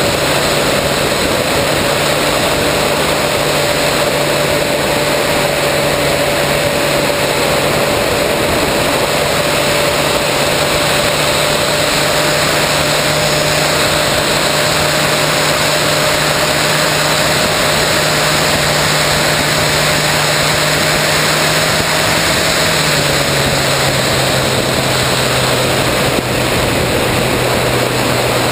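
Battery-powered electric motor and propeller of an RC plane in flight, heard through the onboard camera's microphone: a steady whine over a loud rush of wind and prop wash. The motor's pitch drops a step about 22 seconds in as it slows.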